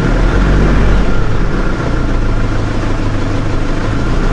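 Nissan Navara diesel engine idling steadily at about 1000 rpm, heard from inside the cab. This is its first run after an EGR valve replacement and ECU reset, and the owner thinks it may be idling a little rough.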